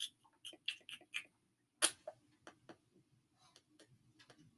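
About a dozen faint, short clicks at irregular intervals, the loudest a little under two seconds in.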